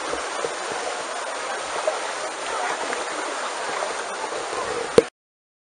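Shallow pool water splashing and churning steadily as people and dogs wade through it, with faint voices in the background. About five seconds in it stops with a sharp click and the sound drops to dead silence.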